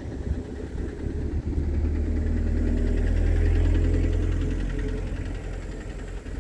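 A motor vehicle driving past, its engine rumble swelling to a peak about three and a half seconds in and then fading away.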